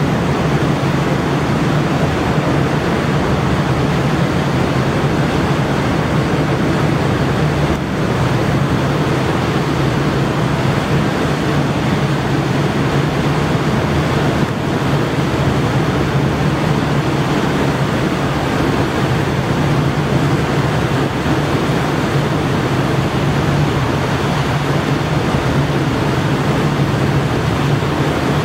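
Boeing 929 Jetfoil running foilborne past, its Allison gas turbines and waterjets making a steady rushing noise with a low hum underneath, mixed with the hiss of its spray.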